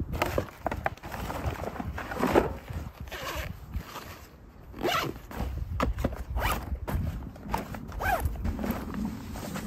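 Zippers on a daypack being pulled in short, repeated strokes, with rustling as gear is packed into it.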